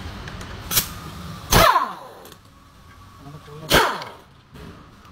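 Pneumatic impact wrench on the crankshaft pulley bolt of a BMW N20 four-cylinder engine, fired in short bursts: a brief blip about a second in, then two hard bursts, each spinning down with a falling whine as the trigger is released.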